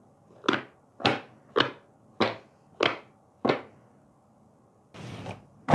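Six short, evenly spaced scrapes and knocks, about one every half second, from a white cardboard phone box being handled and worked open; the box is sold as an iPhone 11. A fainter rustle follows near the end.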